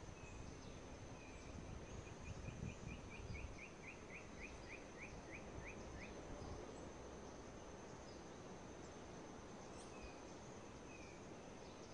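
Faint tropical evening ambience: a steady high-pitched insect drone, with a quick run of about fifteen short, falling chirps from about two to six seconds in.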